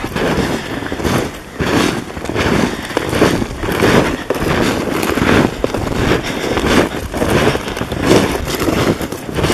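Footsteps crunching through snow, about two steps a second, with the rustle of clothing as the walkers move.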